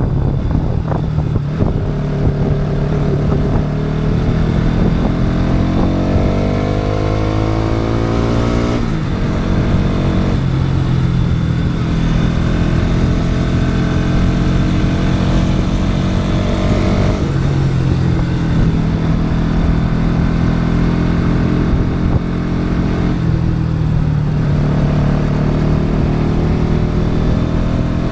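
Bajaj Pulsar NS200's single-cylinder four-stroke engine pulling through the gears, its pitch climbing for several seconds then dropping sharply at a gear change about nine seconds in. It then runs at steadier revs with short dips at two later shifts or throttle lifts, and climbs again near the end.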